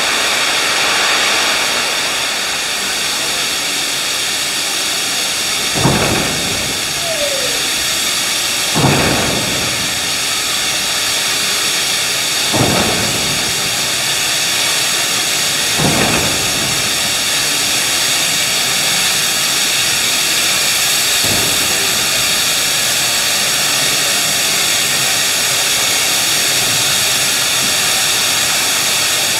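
Pacific-class steam locomotive 3801 hissing steam steadily while it is turned on the turntable, with four heavy thumps a few seconds apart in the first half and a fainter one later.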